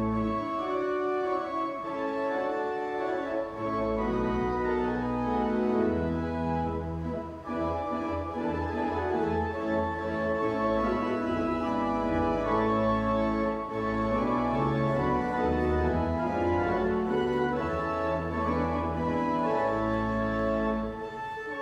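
Pipe organ playing an anthem in full held chords, with the upper parts moving over sustained deep pedal notes. The pedal bass drops out in the first few seconds and comes back about four seconds in.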